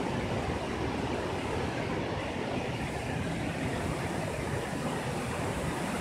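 Steady rush of flowing stream water over rocks near a waterfall, an unbroken hiss with a low rumble beneath it.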